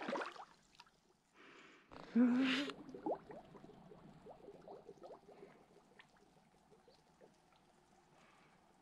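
Bare foot wading into shallow, muddy lake water: a slosh about two seconds in, then small bubbles popping and gurgling up from the stirred mud, fading away.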